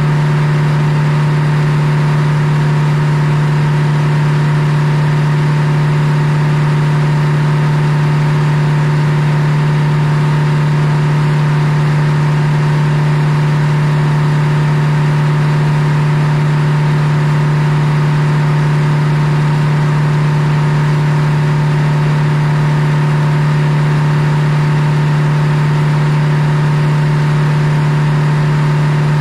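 Large circular sawmill with a belt drive, running free between cuts: the blade and drive make a steady hum at one even pitch.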